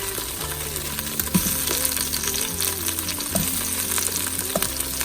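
Onions sizzling and crackling in hot olive oil in an Instant Pot's inner pot on the sauté setting, a steady run of fine crackles, with background music underneath.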